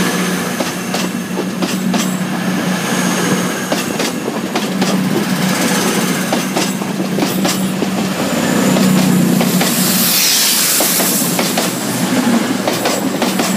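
CrossCountry Voyager diesel multiple unit pulling out past the platform: a steady drone from its underfloor diesel engines, with wheels clicking over rail joints. A burst of hiss rises about ten seconds in.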